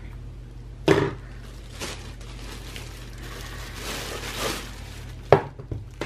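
Clear plastic packaging bag crinkling and rustling as it is pulled off a hair dryer and scrunched in the hands. There is a knock about a second in and a sharp click near the end, the loudest sound.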